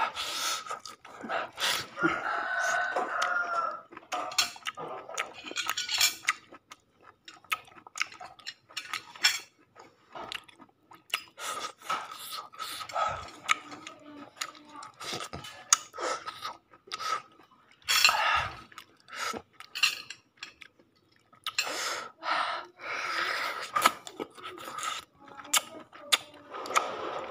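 A person eating grilled chicken by hand: chewing and mouth sounds, with scattered clinks of a spoon, plates and sauce bowls.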